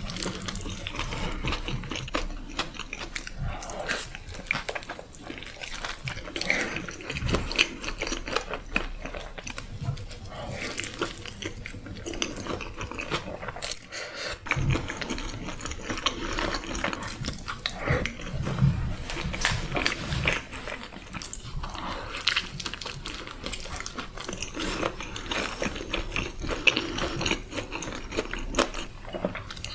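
Close-up chewing and biting of a burger sandwich: irregular wet mouth clicks and smacks, with sharper bites here and there.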